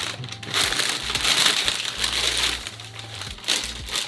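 Shoe-box packing material being crinkled and rustled by hand as the shoe is unwrapped and lifted out, in irregular handling bursts.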